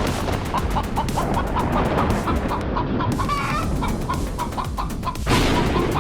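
Chickens clucking in a rapid, continuous series over a steady low background noise that grows louder about five seconds in.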